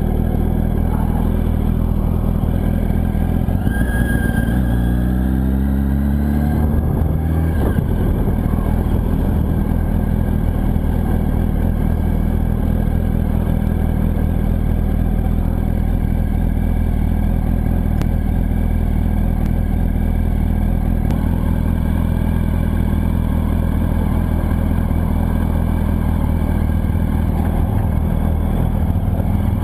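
Yamaha R1 inline-four engine running at low road speed, rising in pitch as it accelerates from about four seconds in, then settling to a steady low note.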